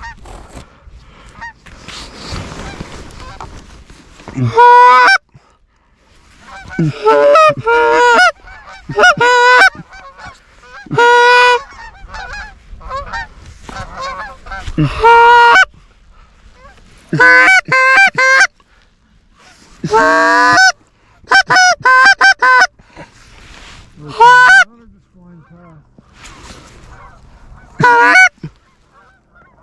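Canada goose honking: loud, pitched honks and clucks in short runs every couple of seconds, some sliding up into the honk, with brief pauses between runs.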